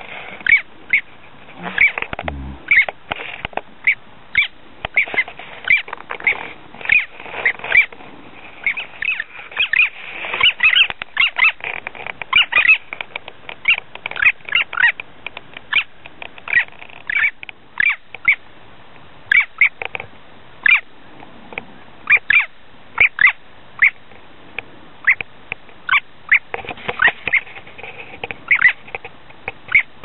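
Long-tailed jaeger calling: short, high calls repeated irregularly, at times several in quick runs.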